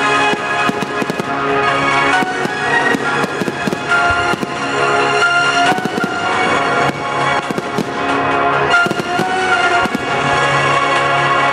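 Fireworks going off in quick, frequent bangs and crackles over music with long held notes.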